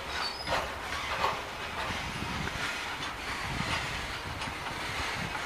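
Covered goods wagons of a freight train rolling past: a steady rumble of wheels on the rails, with irregular clacks as the wheels cross rail joints.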